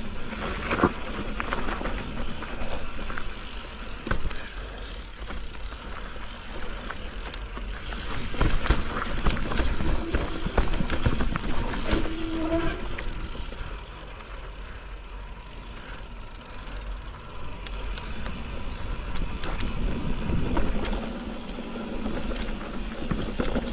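Mountain bike descending a rough trail: tyres running over dirt and stones, with frequent rattles and knocks from the bike, under a steady low rumble of wind on the microphone.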